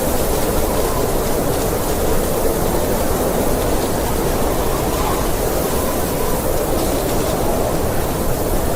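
Steady blizzard wind blowing, a dense even rush of noise with no breaks, heaviest in the low and lower-middle range.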